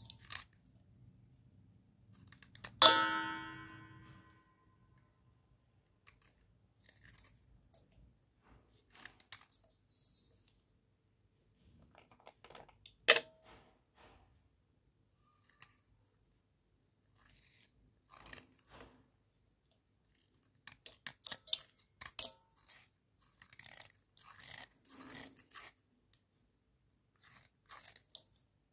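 Wet cubical slate pencils snapped and crumbled by hand, giving scattered crisp snaps and crunches. Broken pieces drop into a stainless steel bowl. The loudest moment is a sharp clink with a ringing tone about three seconds in, and another sharp clink comes a little before halfway.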